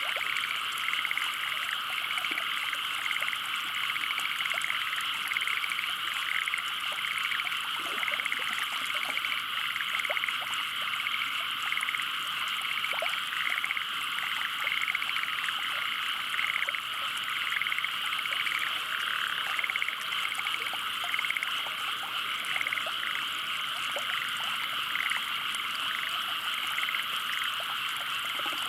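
A dense chorus of many frogs calling at once: overlapping short, repeated calls blending into a steady, continuous din.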